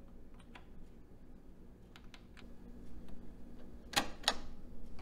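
A few faint switch clicks, then, about four seconds in, two loud mechanical clunks close together as a piano-key transport button on a Harman Kardon hk705 cassette deck is pressed.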